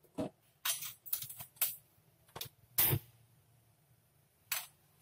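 Metal spoon scraping and clinking against a small nonstick frying pan while spreading cooking oil: a quick run of short scrapes and taps over the first three seconds, the loudest a knock near the end of the run, then one more clink about four and a half seconds in.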